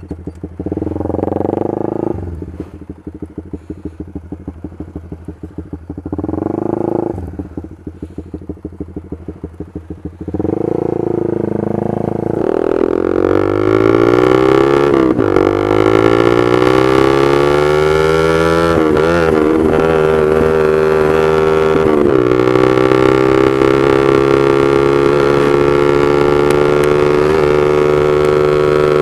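Honda CB150R's single-cylinder engine through a Proliner aftermarket exhaust with a short silencer, which the rider calls very loud ('bacot'). It idles with a pulsing beat and is revved briefly twice, then pulls away about ten seconds in, the note rising through the gears with a dip at each of three upshifts, and settles into a steady cruise.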